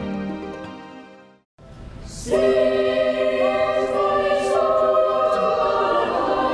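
Soft instrumental music fades out to a brief silence, then a men and boys' church choir comes in about two seconds in, singing sustained notes.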